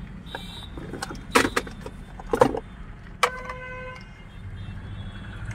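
Plastic knocks and rattles of a replacement steering-wheel clock spring (horn spiral cable) being handled, twice within the first couple of seconds. A little past three seconds in comes a sharp click, followed by a short ringing tone.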